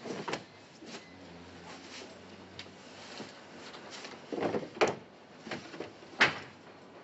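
A scattered string of sharp knocks and clatters, typical of drawers and cupboard doors being opened and shut in a room. There is a loud pair of knocks about four and a half seconds in, and the loudest single knock comes about six seconds in.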